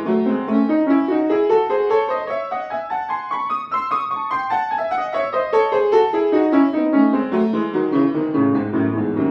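Upright acoustic piano played with both hands: a quick, even run of notes climbs steadily over more than two octaves to a peak about four seconds in, then comes back down, as in scale practice.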